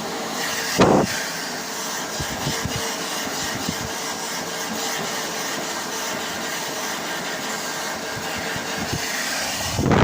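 Levante hand dryer running with a steady blowing noise and a faint hum, with a brief thump about a second in.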